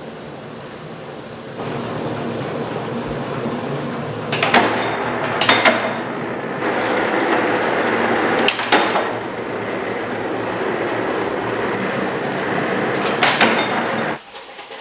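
An old okoshi-making machine running with a steady mechanical noise and a sharp knock every few seconds. It stops abruptly near the end.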